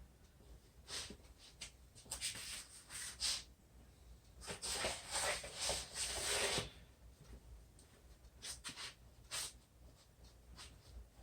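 Shoes being put on: scattered rubs and scuffs, with a denser rustling stretch about four and a half seconds in that lasts about two seconds.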